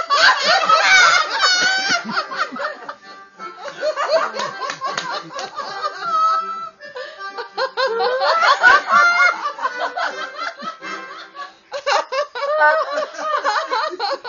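Audience laughing, many voices overlapping with high-pitched squeals and cackles, coming in waves with brief lulls.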